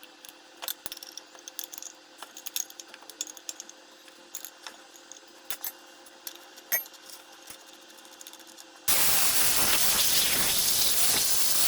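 Metal shop machine, likely a lathe, humming steadily while small metallic clinks and ticks sound at irregular moments. About nine seconds in, a loud steady hiss cuts in abruptly and runs on.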